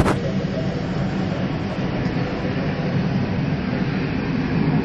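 Takeoff roar of a McDonnell Douglas MD-80's rear-mounted Pratt & Whitney JT8D turbofans at takeoff power: a loud, steady rumble with a hiss over it. A few sharp clicks at the very start.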